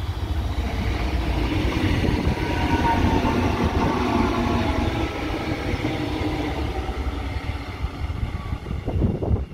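CP Class 2240 electric multiple unit passing close by: wheels rumbling on the rails, with a faint whine that drops slightly in pitch as it goes by, loudest about three seconds in.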